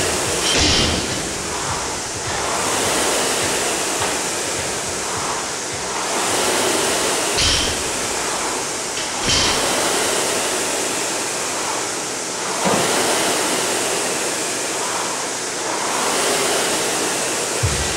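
Air-resistance rowing machine's fan flywheel whooshing, swelling with each drive and fading on the recovery, about every two and a half seconds, with a few sharp knocks.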